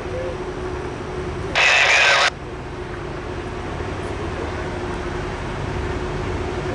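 Low rumble and steady hum of Norfolk Southern diesel locomotives hauling a coal train up the grade, out of sight and slowly growing louder. A short, loud hiss cuts in about one and a half seconds in.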